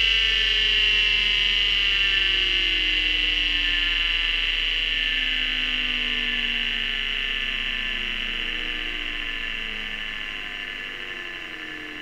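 Vintage hard disk drive winding down: a whine of many tones, all sliding slowly lower in pitch as the sound fades, the sign of the spindle motor coasting to a stop.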